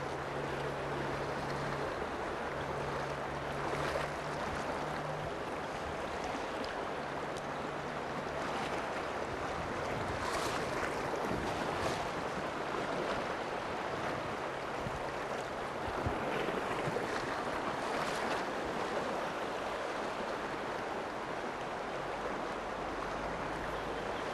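Steady rush of shallow river water running fast over a rocky riffle.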